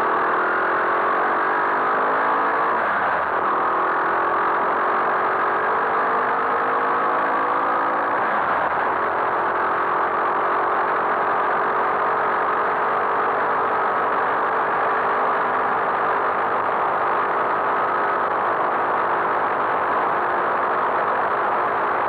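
Skyteam Monkey 125 cc single-cylinder four-stroke engine under way, pulling up through the gears: its pitch rises, drops at a shift about three seconds in, rises again and drops at a second shift about eight seconds in, then holds steady at cruising speed.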